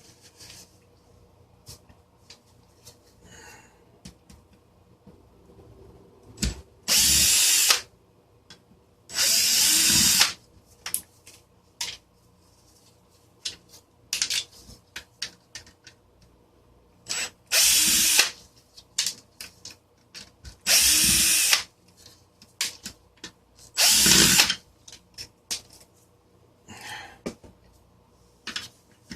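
Power drill running in five short bursts of about a second each, backing out screws from the fan's plastic housing, with small clicks and knocks of handled parts between the bursts.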